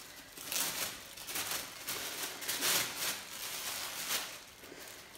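Plastic packaging rustling and crinkling as it is handled, in a string of short swishes.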